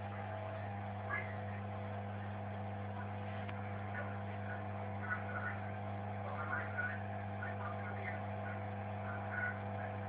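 Washing machine running, a steady low motor hum.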